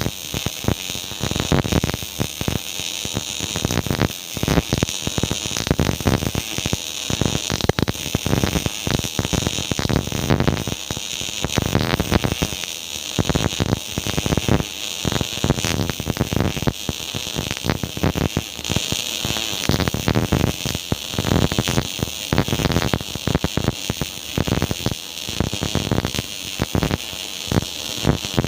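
MIG welding arc crackling in a dense, irregular sputter that runs on without a break.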